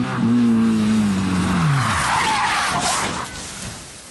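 Rally car engine running hard, its revs dropping away over about a second, then loud tyre-skid noise for about a second and a half as the car slides, fading near the end.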